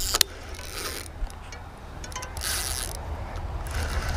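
Spinning reel being cranked in short spells while a hooked carp is reeled in, over a low wind rumble.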